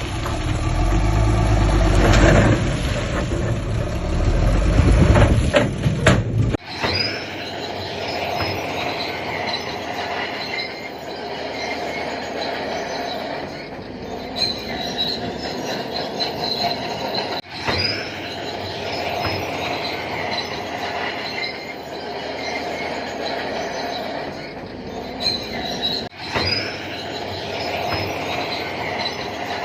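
Heavy diesel engine of a crawler bulldozer running loud, then after an abrupt cut, the steel crawler tracks squealing and clattering steadily as the machine travels, broken by a few more sudden cuts.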